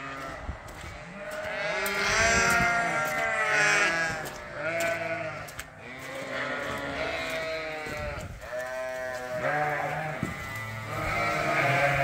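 A flock of Dorset sheep bleating, many overlapping calls one after another, growing louder about two seconds in.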